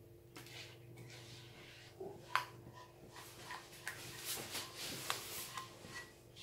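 Silicone spatula scraping thick custard cream out of a coated saucepan into a bowl: soft scraping with a few sharp taps, the loudest about two seconds in.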